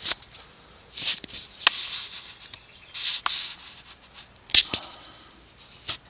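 Scattered light scratching and rustling with a few sharp clicks, the sharpest about three-quarters of the way through: handling noise close to the microphone.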